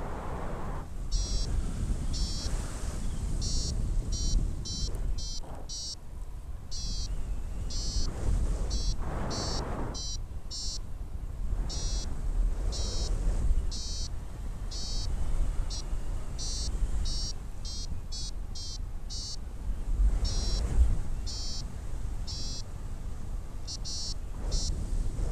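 Paragliding variometer sounding its climb tone: runs of short, high, rapidly pulsing beeps with irregular gaps, over steady wind noise on the microphone that swells in gusts, loudest about twenty seconds in.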